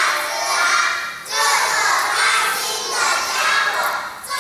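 A group of young children's voices sounding together in unison, in phrases broken by a short pause about a second in and another near the end.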